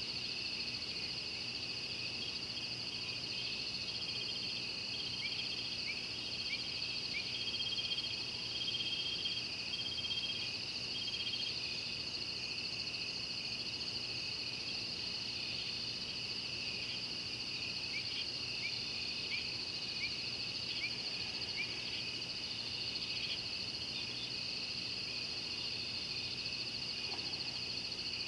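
Steady high-pitched chorus of night insects at a waterhole, with scattered short chirping calls over it, a run of them early on and another past the middle.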